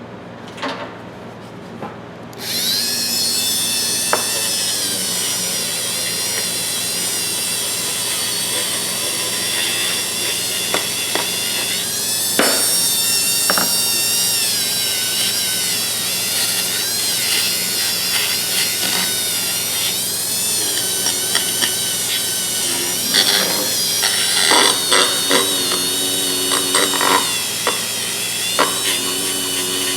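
A small electric power tool starts about two seconds in and runs continuously. Its pitch wavers as it is loaded, and near the end it gets rougher, with rapid irregular chatter.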